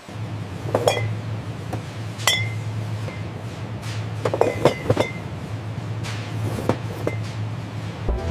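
Glass bottles clinking as they are handled and set down: scattered sharp clinks, each with a short ring, coming in small clusters over a steady low hum.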